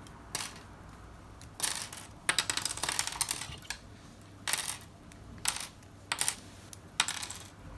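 Small Strandbeest kit feet being twisted off their frame one after another: short bursts of light clicking and snapping, about one burst a second.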